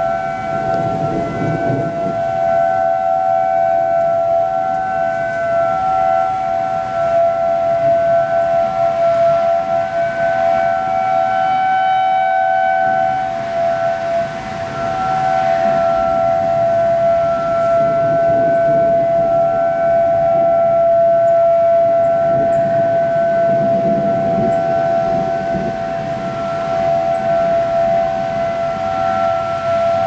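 Outdoor tornado warning sirens sounding a steady, loud wail on two close pitches, swelling and fading over and over. The sirens are sounding a tornado warning.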